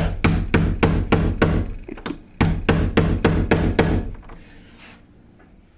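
A hammer pounding on a locked door in rapid blows, about four a second, in two runs with a brief pause between them, stopping about four seconds in.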